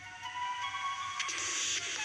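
A Nokia N8-00 ringtone starting to play: an electronic melody of held, pitched notes with light percussive clicks joining about a second in. It starts suddenly after near quiet.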